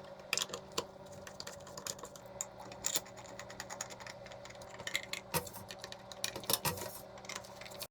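Steady machine hum with many irregular sharp clicks and taps over it.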